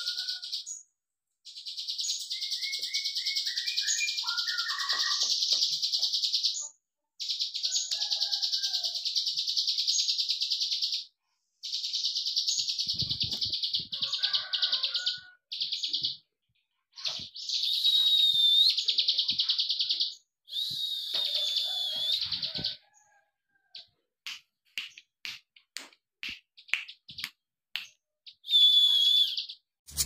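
Caged ashy drongo (sri gunting) calling: long, high, fast clicking rattles of a few seconds each, repeated with short breaks, mixed with a few short falling whistled notes. Near the end the rattle breaks up into separate clicks before one last short rattle.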